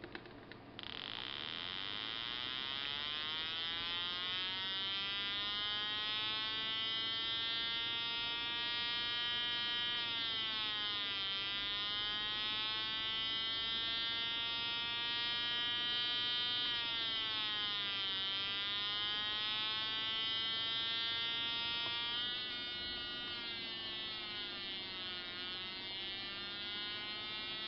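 Homemade two-transistor electronic siren circuit sounding a buzzy tone that starts about a second in. Its pitch climbs slowly, falls away and climbs again, several times over.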